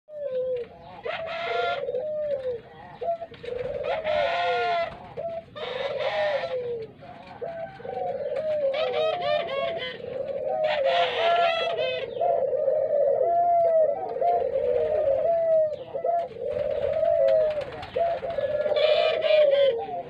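A group of Barbary doves (ringneck doves) cooing continuously, many low coos overlapping one another, with louder, higher calls breaking in every few seconds.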